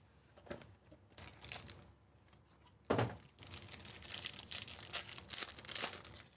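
Foil wrapper of a Topps Inception trading card pack being torn open: a sharp rip about three seconds in, then steady crinkling as the wrapper is pulled apart. Quieter rustling of the box and pack comes before it.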